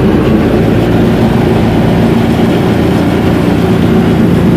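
Viking 130 aircraft engine, a Honda Fit-based four-cylinder, running steadily at about 1,700 rpm with the propeller turning, heard from inside the cockpit. It has just been started cold in sub-freezing weather and is running smoothly at the raised rpm.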